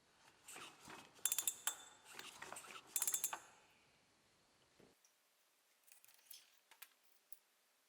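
Metal chainsaw parts and hand tools clinking and rattling during reassembly: two clusters of sharp ringing clinks, then a few fainter clicks in the second half.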